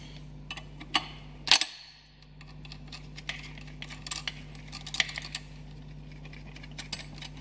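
Metallic clicks and clinks of a wrench and a steel fuel-line union nut as a high-pressure diesel injector line is loosened and unscrewed, with one sharper knock about one and a half seconds in.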